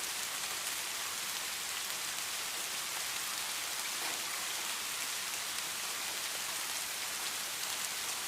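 Steady falling rain: an even, unbroken hiss with faint fine patter.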